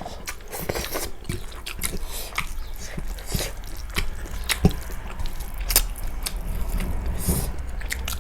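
Eating sounds close to the microphone: chewing with irregular wet mouth clicks and smacks.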